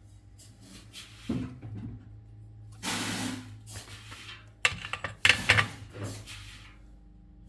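Tools and parts being handled on a workbench: irregular scrapes, rustles and knocks, with a cluster of sharp clicks about five seconds in, over a steady low mains hum.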